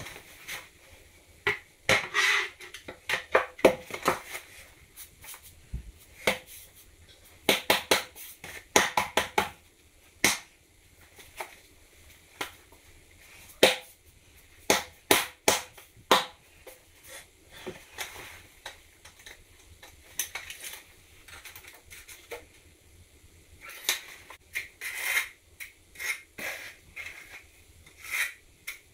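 Trowel scraping thinset mortar across the back of a floor tile, with irregular clicks and knocks as the tile is handled and set down in clusters.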